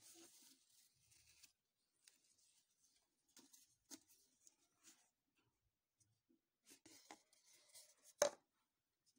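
Faint rustling and light taps of paper, ribbon and a kraft paper cup being handled, with a sharper knock about eight seconds in.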